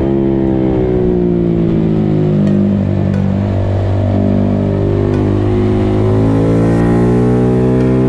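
Honda Monkey 125's single-cylinder four-stroke engine running through a full Akrapovic exhaust, heard on board while riding. The engine note sinks over the first few seconds as the bike eases off, then rises steadily from about five seconds in as it accelerates.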